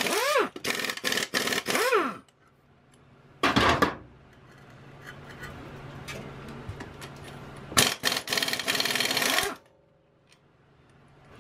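Pneumatic impact wrench rapidly hammering loose the nuts on a garden tractor's rear wheel hub, in bursts. A long run for the first two seconds, its air motor whine rising and falling. A short burst about three and a half seconds in, then another run of nearly two seconds near the end.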